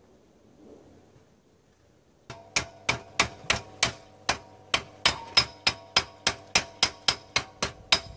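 A hammer striking metal: after about two seconds of quiet, a steady run of around twenty sharp ringing blows at about three a second.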